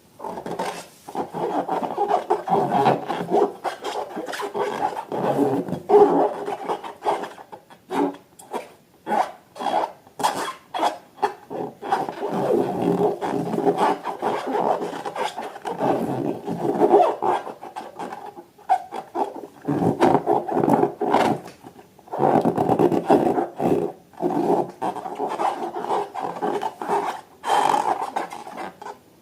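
Hands squeezing and rubbing balloons and slime: irregular bursts of rubbery squeaking and squishing, with short pauses between them.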